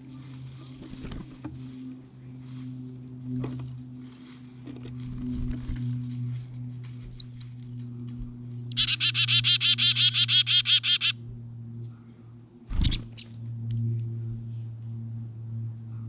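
Small songbirds at a seed feeder calling: scattered short, high chirps, then a loud run of rapid, buzzy repeated notes lasting a couple of seconds just past the middle. A sharp thump follows a little later, over a steady low hum.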